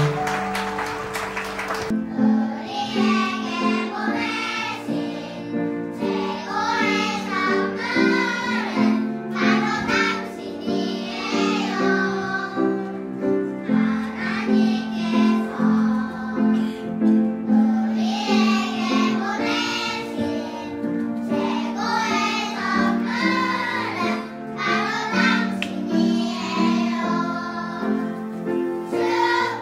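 A children's choir singing a song in phrases a few seconds long, over a steady instrumental accompaniment.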